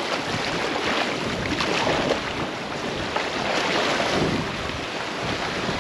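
Fast creek current rushing and splashing around a kayak hull as it runs a swift riffle, with wind buffeting the microphone.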